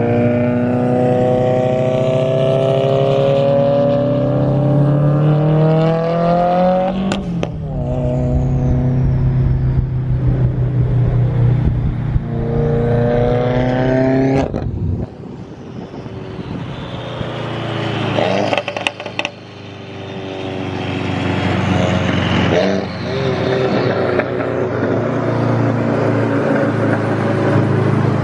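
Car engine under hard acceleration, rising in pitch through a gear, breaking at shifts about 7 and 14 seconds in, then easing off with a few sharp cracks near the middle before pulling hard again.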